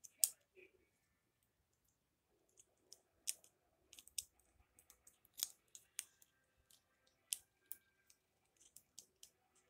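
Small plastic clicks and snaps, about ten of them scattered a second or so apart, as a Bakugan toy's hinged plastic parts are folded by hand back into ball form.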